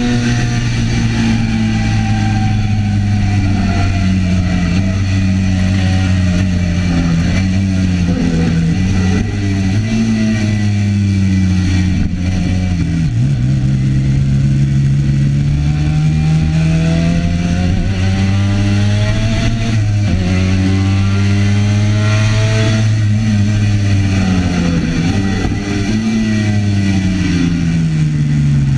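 Onboard sound of a classic racing motorcycle engine under hard use, its note climbing as it accelerates and dropping at each gear change or slowing for a bend, several times over.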